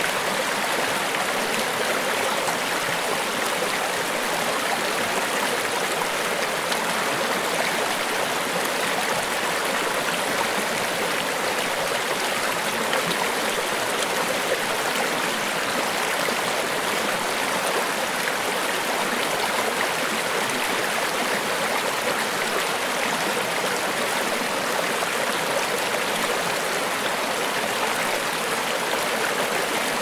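River water flowing, a steady, unbroken sound of running water.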